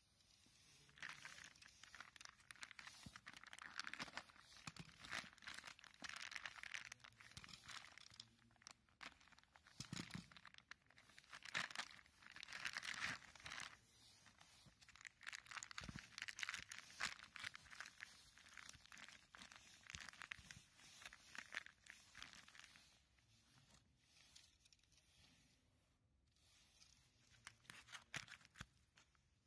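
Plastic bags crinkling and rustling as gloved hands pick them up and move them about, in irregular spells that die down over the last few seconds.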